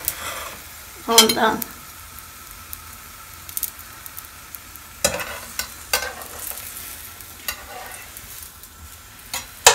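Filled lavash gözleme frying in a frying pan greased lightly with sunflower oil: a steady soft sizzle. In the second half, metal tongs handling the gözleme give a few sharp clicks against the pan.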